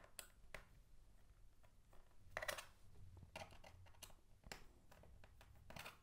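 Small screwdriver turning out the tiny bottom-panel screws of a laptop, making a scatter of faint, irregular clicks and scrapes, a little louder about two and a half seconds in and near the end.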